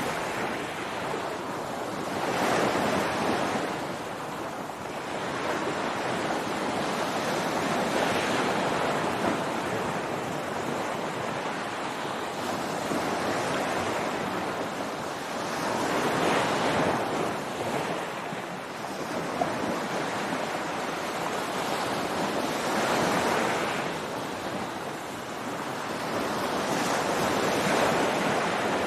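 Ocean surf breaking on a beach: a steady wash of noise that swells with each wave, about every six to seven seconds.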